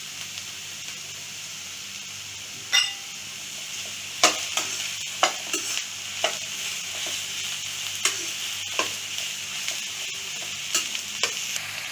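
Sliced ridge gourd and onions sizzling in hot oil while being stirred, with a spatula knocking and scraping against the pan about nine times. The sizzling grows a little louder about four seconds in.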